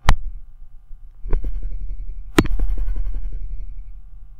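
A sharp click at the start, then from about a second and a half in a run of quick small ticks and knocks over a low rumble, the loudest knock about halfway through: handling noise close to the microphone.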